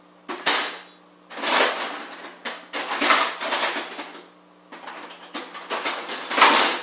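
Metal hand tools clinking and clattering in a steel tool chest drawer as they are sorted through by hand, in several separate spells with short pauses between them.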